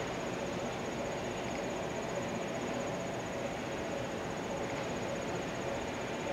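Steady outdoor background noise at an open railway station platform, with no train passing. A faint, high, rapidly pulsing tone runs through it.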